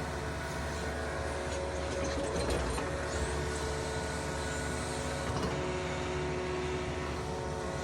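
Yanmar mini excavator's diesel engine running steadily while digging, with brief swells of working noise about two and a half seconds in and again about five and a half seconds in.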